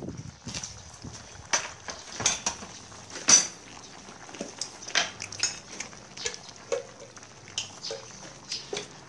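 Chopsticks and spoons clinking and tapping against plates, bowls and a stainless-steel hotpot: a run of irregular sharp clinks, the loudest a little over three seconds in.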